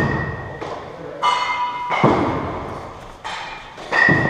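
Cricket balls striking bats and the lane in an indoor practice hall: a string of about five sharp knocks, some with a brief ringing ping, echoing in the large hall.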